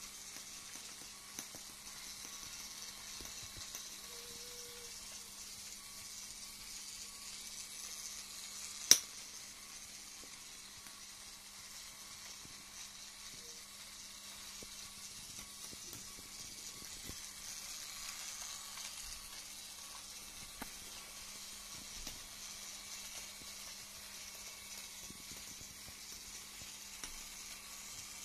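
A small LEGO train runs round a plastic track with a steady, faint, hiss-like whirr from its motor and wheels. One sharp click comes about nine seconds in.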